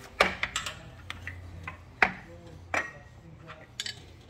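Irregular sharp metallic clinks and knocks of steel machine parts being handled by hand, around the roller drive chain and a detent pin, the loudest about two seconds in, over a faint steady low hum.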